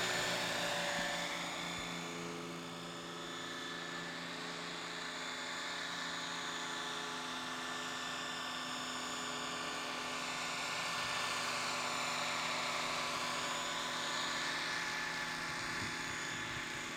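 RC scale model helicopter (Eurocopter AS355 body on a Century Falcon frame) flying, with a continuous whine from its rotor and drive. The sound dips slightly a couple of seconds in and swells a little past the middle as the helicopter moves.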